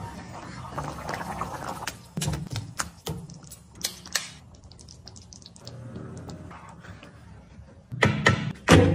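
A spatula stirring and scraping thick butter chicken gravy in a nonstick pan, with scattered clicks and taps, and fresh cream poured in from a carton partway through. Two heavy thuds near the end.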